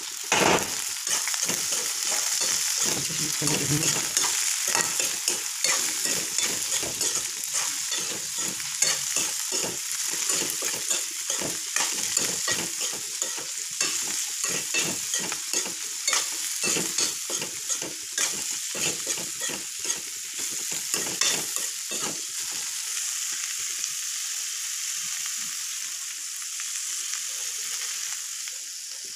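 Chopped cabbage, potato and green beans sizzling in oil in a metal kadai while a metal spatula stirs them, clicking and scraping against the pan. The stirring thins out and stops about three quarters of the way through, leaving the steady sizzle.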